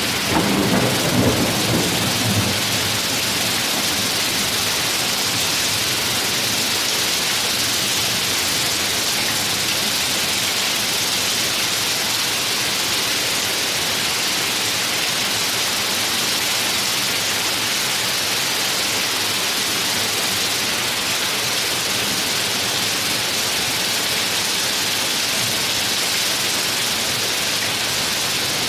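Heavy storm rain pouring steadily, a dense even hiss, with a brief low rumble in the first couple of seconds.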